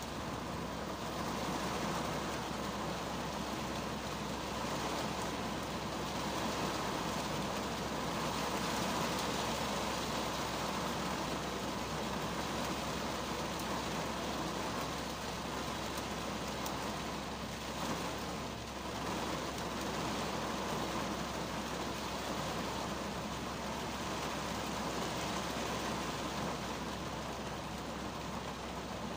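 Rain falling on the roof and windscreen of a 2010 Kia Cerato, heard from inside the cabin: a steady, dense patter that eases slightly for a moment about eighteen seconds in.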